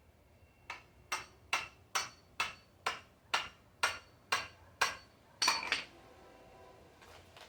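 Hammer tapping a screwdriver into the soft outer husk of a green coconut: about eleven even strikes, roughly two a second, the last a quick double blow.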